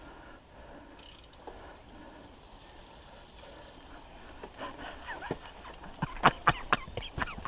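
Mountain bike rolling along a dirt forest trail: faint rolling noise at first, then a run of sharp clattering knocks in the second half as the bike rattles over bumps.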